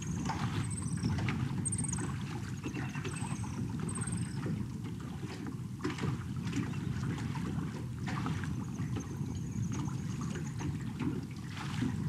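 Steady outdoor seaside ambience: a low rush of wind and sea, with scattered faint clicks and a few brief high chirps in the first few seconds.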